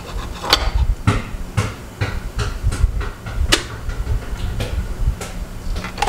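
Sharp clicks and knocks, about a dozen at uneven intervals, as a cup is set on the drip tray of a Nespresso Vertuo coffee machine and its lid is handled shut before brewing. A low steady hum runs underneath.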